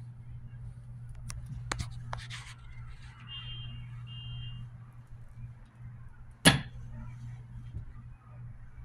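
Work sounds at a wooden wire soap cutter: a few light clicks and a short scrape, then one sharp knock about six and a half seconds in, over a steady low hum.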